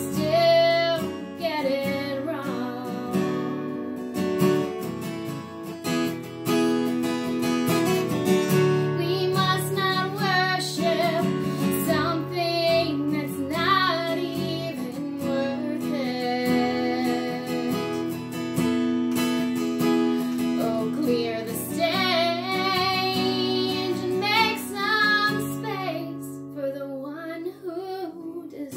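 A woman singing a worship song to her own acoustic guitar, her held notes wavering in pitch over the steady guitar accompaniment.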